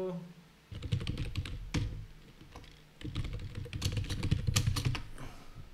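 Computer keyboard typing in two bursts of quick keystrokes, the first about a second in and the second from about three seconds in, as a password is keyed into a login box.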